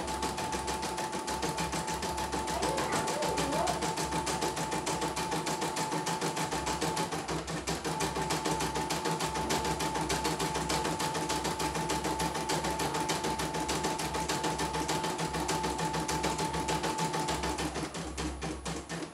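CNY E900 portable embroidery machine stitching a test design, its needle clattering rapidly and evenly, after a repair of a machine that had been completely dead. A steady high whine runs under the stitching, drops out briefly about seven seconds in and stops near the end.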